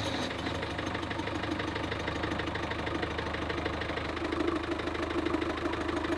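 A sailboat's port inboard engine running steadily during a timed test run, with an even, rapid beat.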